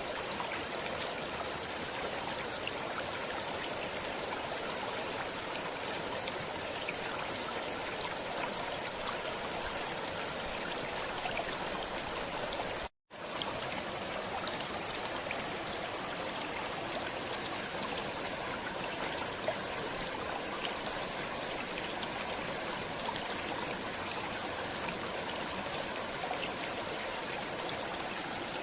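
Stream water flowing and splashing over rocks in a steady, even rush, with a few small droplet splashes. The sound cuts out completely for an instant about halfway through, then resumes unchanged.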